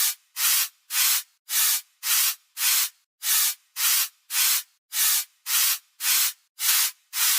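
A drawing tool scratching across paper in short, evenly spaced strokes, just under two a second.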